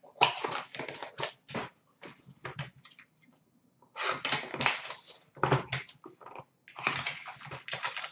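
Trading card pack wrappers and packaging rustling and crinkling as packs are handled and opened, in short scratchy bursts with a quiet pause about halfway through.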